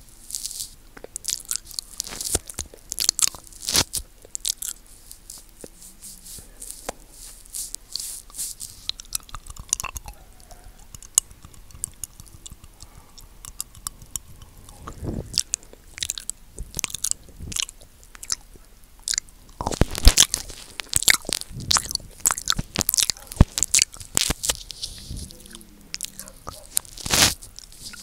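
Close-miked ASMR mouth sounds: a tongue licking the microphone and lips smacking, an irregular run of wet clicks and smacks that thins out for a while in the middle and comes thick and fast near the end.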